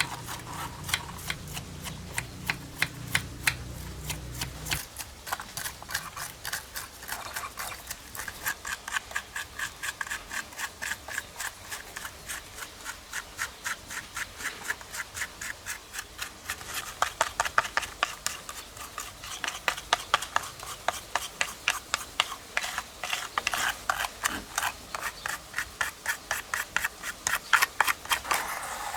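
Rapid, rhythmic scrubbing strokes on a small diecast model car, about four a second, as dirt is worked off its body. A low hum sits under the first few seconds and stops about five seconds in.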